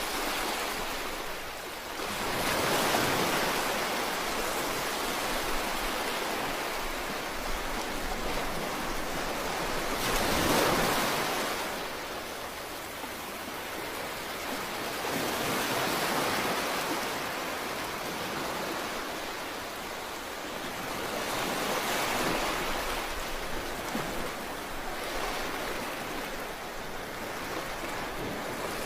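Sea waves washing onto the shore, a steady rushing surf that swells and eases, with louder breakers roughly every six seconds.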